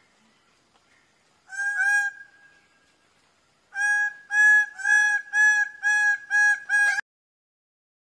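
Male greater bird-of-paradise calling: a short double note, then a loud series of about seven repeated call notes, about two a second, that breaks off suddenly.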